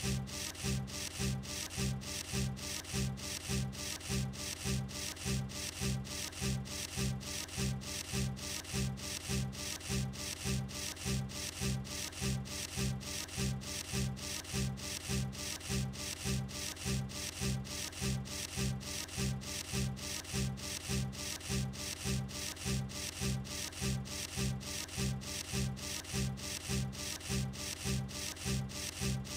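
Emery-board nail file rasping back and forth against claws in steady, even strokes, about two a second.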